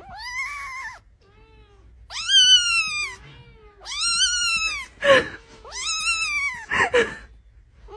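A kitten meowing about five times, each meow drawn out for about a second and rising then falling in pitch, the second one fainter.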